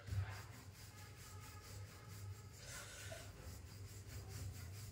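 Wooden rolling pin rolling out paneer-stuffed paratha dough on a stone counter: a faint, soft rubbing back and forth, over a low steady hum.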